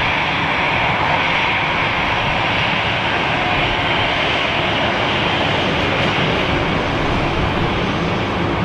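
Jet airliner engines running, a loud, steady noise without breaks.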